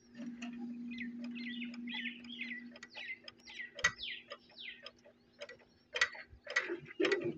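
Irregular metallic clicks and ticks at an old diesel oil engine, a few a second, over a steady low hum. Birds chirp in quick falling notes through the first few seconds.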